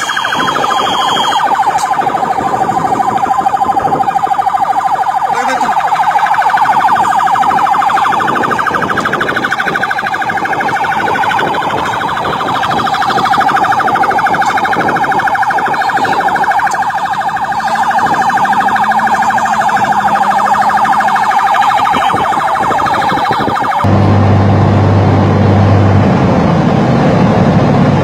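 A loud, continuous siren-like alarm tone that holds a nearly steady pitch with a slight waver and a fast pulse. About four seconds before the end it cuts off abruptly and gives way to a low steady hum.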